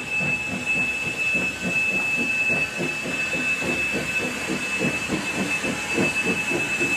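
Steam-train sound effect: a locomotive chugging at a steady rhythm of about three to four beats a second, with hiss and a thin steady high tone over it, starting and stopping abruptly.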